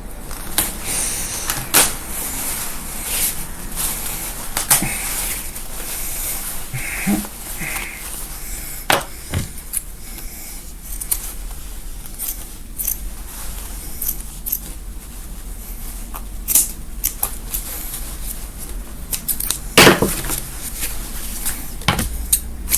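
Seam ripper cutting the stitches of a gown's seams: irregular small clicks and snips with fabric being handled between them. A louder click comes near the end.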